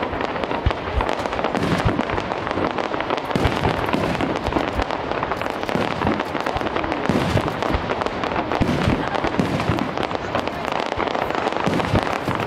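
Aerial fireworks shells bursting one after another, many overlapping bangs with no pause.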